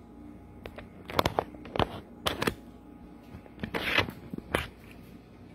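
Aluminium foil crinkling in several short bursts as it is peeled off a cup of steamed egg.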